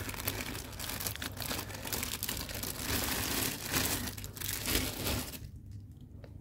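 Thin clear plastic bag crinkling as it is pulled off a resin statue part, with many small crackles, dying away about five seconds in.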